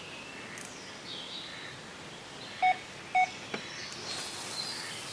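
Electronic carp-fishing bite alarm giving two short beeps about half a second apart, a little past halfway. Near the end comes a faint swish as a carp rod is cast out.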